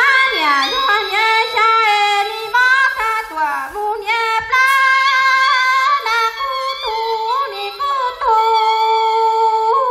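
A woman singing unaccompanied into a microphone, a single voice sliding and wavering between notes, ending on a long held note.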